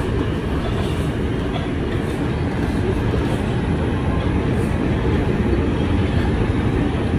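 Steady low rumble of a New York subway train on the rails, heard from inside an R142 car, with faint regular clicks over it.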